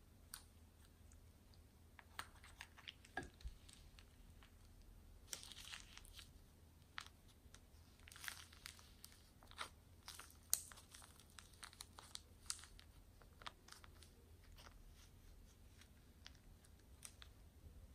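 Faint, irregular crinkling and crackling as a plastic piping bag of foam beads is squeezed out into clear slime, the beads crunching and popping; the crackles grow busier about a third of the way in.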